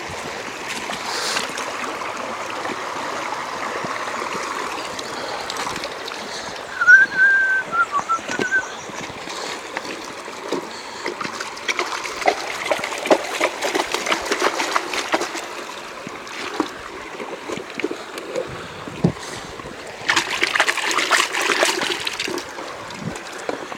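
Shallow river water running over stones, with water sloshing and splashing in a gold pan as it is worked. Near the end, water is poured out of the pan in a louder rush. A short high chirp sounds about seven seconds in.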